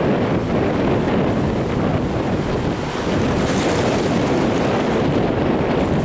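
Wind blowing on the microphone over choppy sea waves washing and lapping, a steady rushing noise, with a brief brighter hiss about halfway through.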